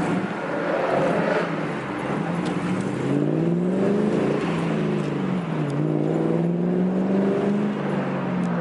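Car engine running under way, its pitch rising and falling several times as it speeds up and eases off.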